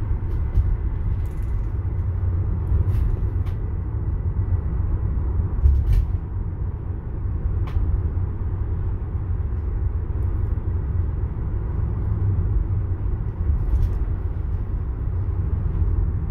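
Steady low road and tyre rumble inside the cab of a Ford E-Transit electric van driving at about 30 mph, with no engine note, and a few brief clicks scattered through it.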